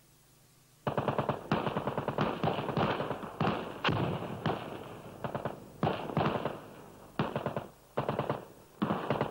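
Machine-gun fire in repeated short bursts of rapid shots, starting about a second in.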